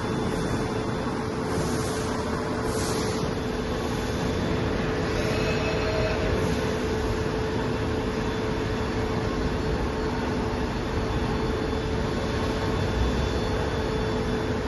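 Soraluce FP8000 travelling-column CNC milling machine running: a steady mechanical rumble with a constant mid-pitched hum, and a few short hisses in the first seconds.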